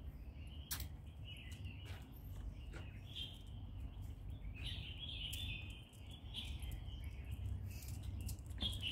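Small birds chirping and twittering in scattered short bursts, over a steady low rumble of background noise.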